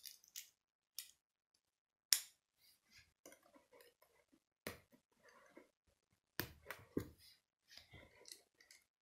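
K'nex plastic rods and connectors clicking as they are pressed and snapped together by hand: a handful of sharp, irregularly spaced clicks, the loudest about two seconds in and a few more close together near seven seconds, with softer handling noise between.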